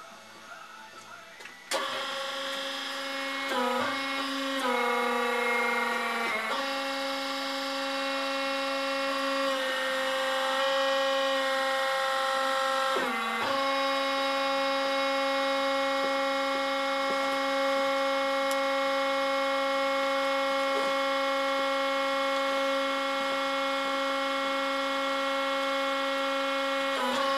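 Tractor-driven power harrow running, starting about two seconds in with a steady mechanical whine that dips briefly a few times and drops in pitch for a moment before settling.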